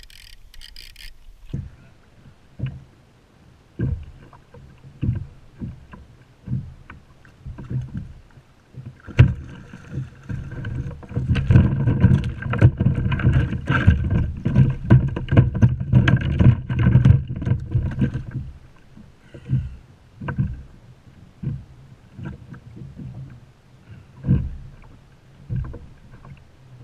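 Knocks and thumps on a plastic fishing kayak's hull, picked up by a camera mounted on the boat. They come irregularly, about one a second, with a stretch of rapid, dense thumping lasting several seconds in the middle.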